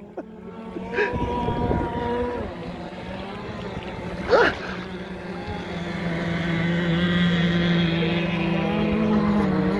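Petrol RC boat two-stroke engines running out on the lake, a steady buzzing drone that grows louder and rises slightly in pitch over the last few seconds as the boats speed up. There is one brief loud sweeping sound about four and a half seconds in.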